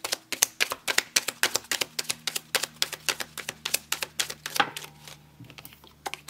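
Tarot cards being shuffled in the hands: a rapid run of crisp card clicks, several a second, thinning out after about four and a half seconds, then a card laid down on the cloth near the end.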